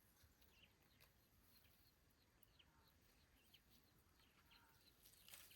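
Near silence, with faint scattered bird chirps throughout.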